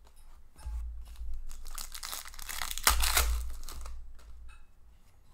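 Hockey trading cards being handled and flipped through in the hands: dry rustling and flicking of card against card. The rustling thickens from about two seconds in and peaks around three seconds in, then eases off into light handling.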